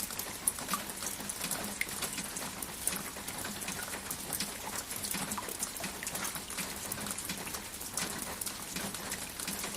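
Steady rain falling, with many small separate drop ticks over an even hiss.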